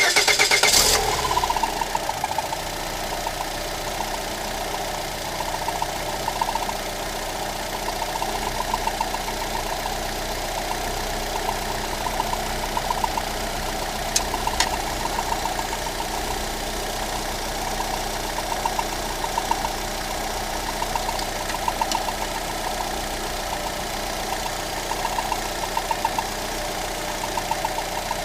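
Lada Granta's rebuilt 1.6-litre 16-valve VAZ-21126 engine catching and running a little faster for about a second and a half, then idling steadily with a rhythmic grinding scrape. The scrape is the belt tensioner roller rubbing on the crankshaft pulley.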